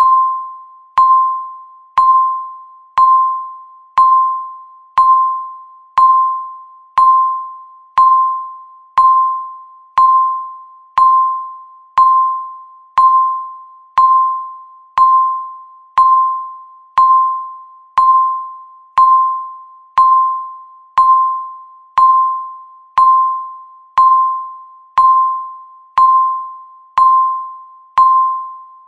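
Electronic beep marking each second of a countdown timer: a single ding near 1 kHz once a second, each struck sharply and fading away before the next.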